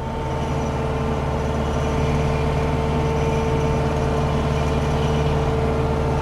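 Landini Blizzard 65 tractor's diesel engine running steadily while it drives a Taarup flail mower that has just been lowered to cut grass, with a steady whine over the drone. The sound grows a little louder over the first couple of seconds, then holds level.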